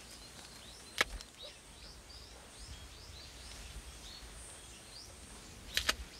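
Many small birds chirping in short, repeated falling calls over a steady outdoor background, with one sharp snap about a second in and a quick double snap near the end.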